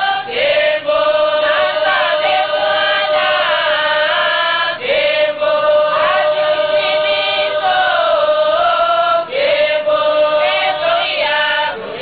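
Group of women singing a gospel song together, long held notes that bend and slide, in phrases that start afresh about every four and a half seconds.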